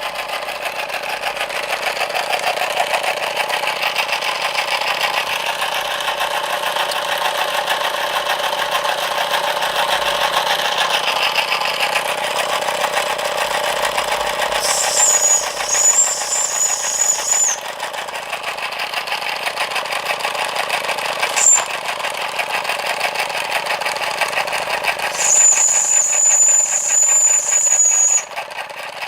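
Cyldon 13/5 model steam engine running fast and bit loud with a rapid, even mechanical clatter, no governor to slow it. Its steam whistle shrieks three times over it with a high, wavering tone: for about three seconds midway, a short blip, then about three seconds near the end, bleeding off steam as a poor man's regulator.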